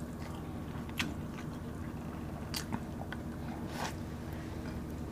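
Close-up eating sounds: biting and chewing food eaten by hand, with a few short sharp crunches or clicks about one, two and a half and nearly four seconds in.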